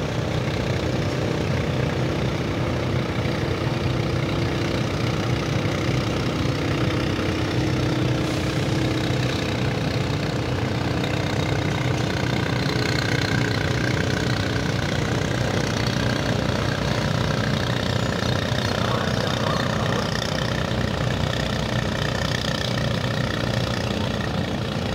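Steady low drone of a cargo ship's diesel engine running while the vessel maneuvers to dock.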